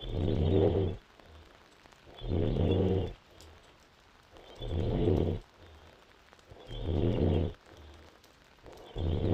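A woman snoring in deep sleep: five low snores, each about a second long, coming roughly every two and a quarter seconds, with softer breathing between them.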